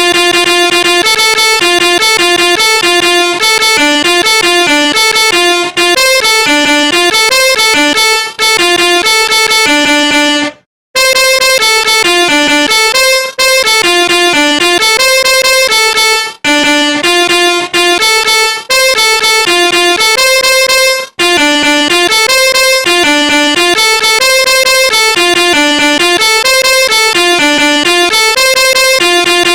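Phone ringtone playing: an electronic melody of quick short notes, the tune repeating about every ten seconds with a brief break just after ten seconds in.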